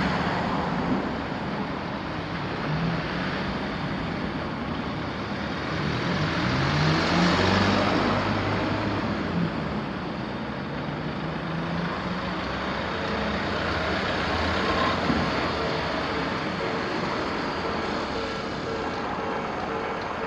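Road traffic: cars and trucks passing, with engines accelerating and tyre noise. It is loudest about seven seconds in.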